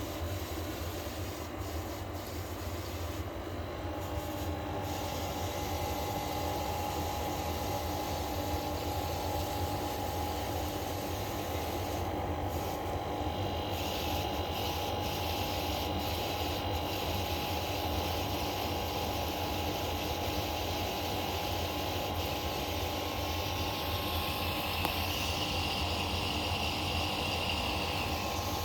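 Electrolux WP71-265WT portable air conditioner running: a steady low hum and rush of air with several steady whining tones over it that clash with each other. A higher whine joins about halfway through and grows stronger near the end. The owner takes this dissonant noise for a fault, the same in a replacement unit, though Electrolux calls it normal.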